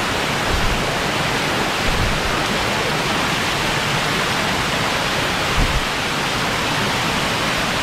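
Waterfall cascade pouring over rock right next to the microphone: a steady, loud rush of water, with a few brief low thuds.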